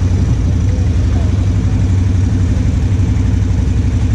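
ATV engine idling steadily, loud and low-pitched.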